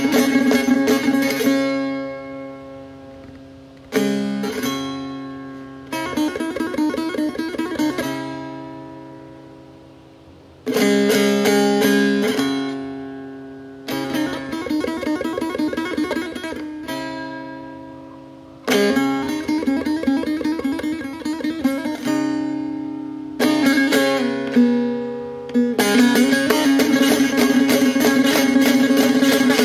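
Persian dutar played solo: phrases of fast strummed strokes over a ringing low drone, each phrase broken off and left to ring and fade for a second or two before the next begins. The strumming runs on without a break over the last few seconds.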